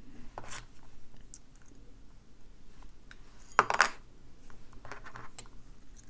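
Small metal clicks and scrapes of a lock pick and tension wrench being moved and reset in the keyway of an Ingersoll 10-lever lock core. A short cluster of louder metallic clicks comes a little past halfway, and a softer one about a second later.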